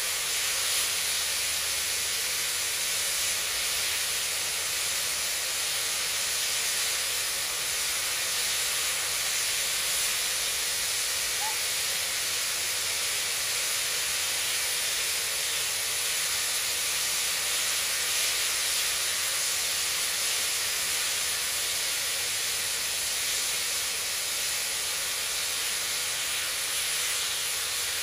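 Steam locomotive 5917, an NSWGR 59 class, standing and venting steam in a steady, unbroken hiss.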